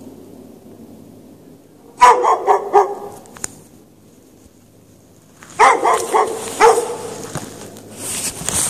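Dog barking in two quick runs of sharp barks: about five starting two seconds in, then four or five more after a short pause.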